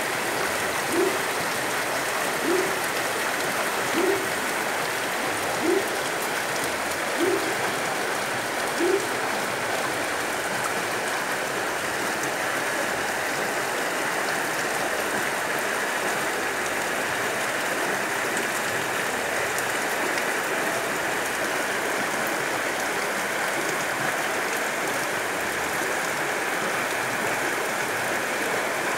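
Heavy rain pouring onto a flooded dirt street, with muddy runoff rushing steadily. For the first nine seconds or so, a short low tone repeats about every second and a half.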